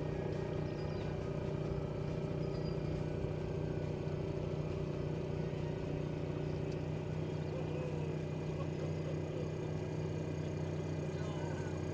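Boat engine running steadily at low speed, an even hum with a fixed pitch.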